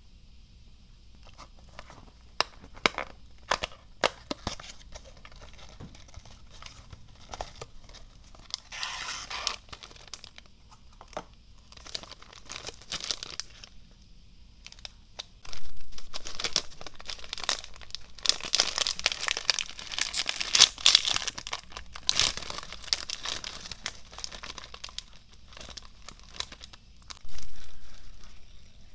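Snack packaging being opened by hand: scattered clicks and scrapes from the cardboard Pretz box, then the foil inner pouch crinkling loudly and tearing open for several seconds midway, with another burst of crinkling near the end as the pouch is pulled open further.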